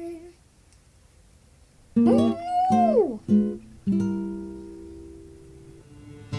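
Acoustic guitar music: after a short pause, plucked notes come in under a tone that slides up and back down, then a note is left ringing and fading before the strumming picks up again at the end.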